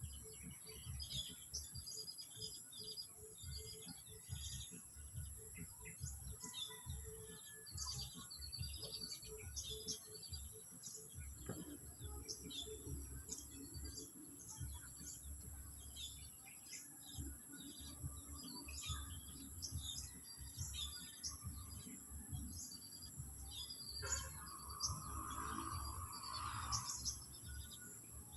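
Small parrot chirping: many short, high chirps in quick succession, with a lower, harsher call about three-quarters of the way through. A constant high whine and a low rumble run underneath.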